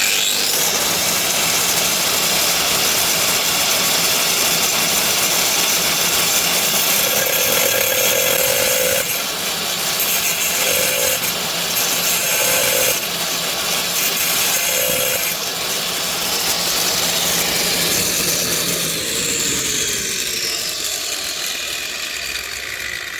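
Angle grinder cutting right through a porcelain tile from the back: a loud, continuous grinding over a steady motor hum. About four-fifths of the way in the cutting stops and the grinder winds down, its pitch falling.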